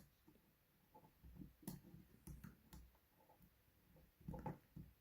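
Faint, scattered small clicks and handling taps as flex-cable connectors are pressed into a mobile phone's circuit board, with a slightly louder cluster near the end.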